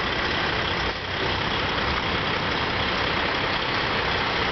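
Diesel engines of heavy show trucks idling steadily.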